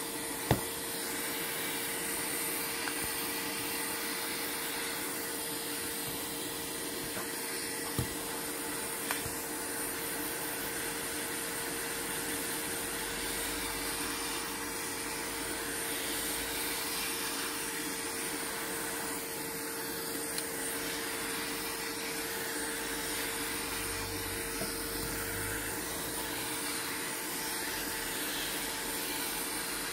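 Steady rushing air from an electric blower, with a constant hum and a few small sharp clicks, the loudest about half a second in.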